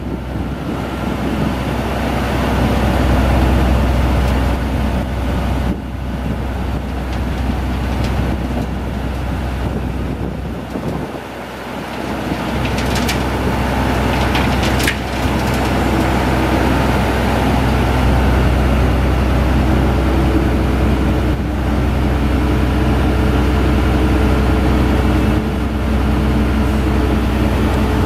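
Diesel engine and hydraulics of a Vactor 2100 combination sewer truck running steadily as the debris tank is tilted up to dump. The running eases briefly a little before halfway, then picks back up, and two short high-pitched sounds come about halfway through.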